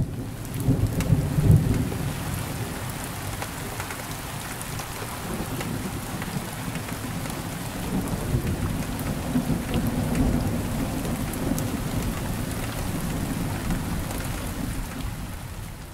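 Steady rain pattering with low rolling thunder, the rumble heaviest in the first two seconds.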